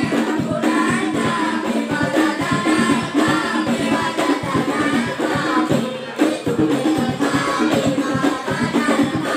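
Boys singing together over an ensemble of rebana, hand-struck frame drums beating a fast, steady rhythm.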